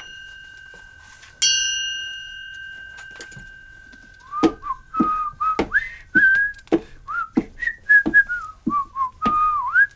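A bell is struck once and rings out, fading over about two seconds. Then a man whistles a wandering tune over steady footsteps, a little under two steps a second, as he walks down to the basement.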